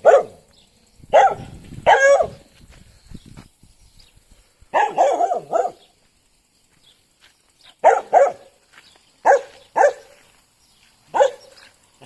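A dog barking in short, separate barks, about nine in all with pauses between them, including one longer, drawn-out bark about five seconds in.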